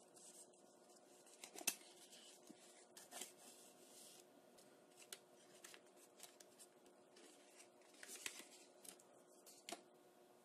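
Faint, scattered rustles and sharp little clicks of a small kraft-paper box being opened by hand, its inner sleeve slid out and the screen-protector films inside handled.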